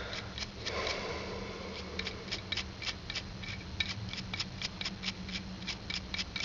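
Stiff synthetic brush wet with petrol scrubbing the knurled flint wheel of a Zippo lighter. A soft rustle comes first, then a quick run of short scratchy strokes, about four a second.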